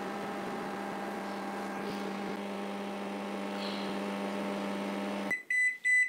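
IFB microwave oven running with a steady hum while heating a jar of water, cutting off abruptly about five seconds in, then sounding its end-of-cycle beeps.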